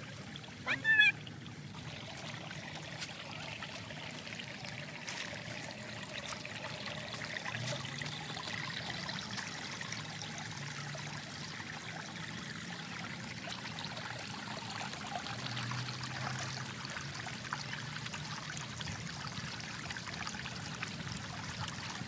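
Shallow rocky creek trickling steadily over stones. A brief, loud, high-pitched sound cuts in about a second in.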